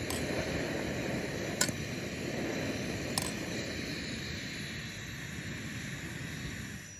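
Portable gas camping stove burner running with a steady hiss under a pot of boiling tea, with two light clicks along the way. The hiss cuts off suddenly at the very end.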